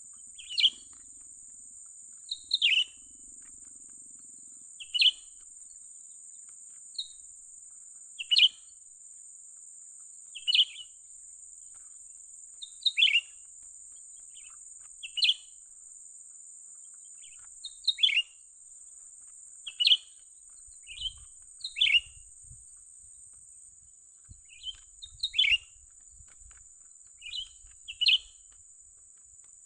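Cucak ranting bulbul calling: a short chirp sweeping down in pitch, repeated about every two seconds, some chirps led by a brief higher note. A steady high hiss runs underneath.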